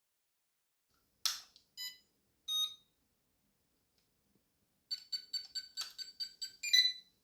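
Electronic beeps: a sharp click, then two separate beeps, then a fast run of about ten short beeps, roughly five a second, the last one the loudest.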